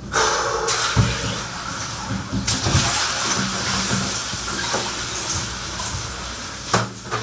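Ice water in a bathtub sloshing and splashing as a person climbs in and stands in it, with a few dull knocks in the first three seconds.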